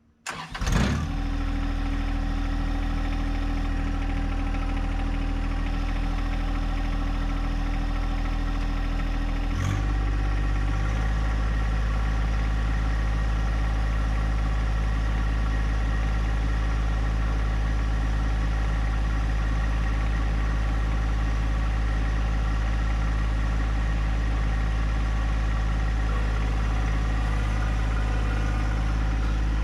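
John Deere 1025R compact tractor's three-cylinder diesel engine starting up and settling into a steady run. About ten seconds in the throttle is raised, and it runs steadily at a higher speed.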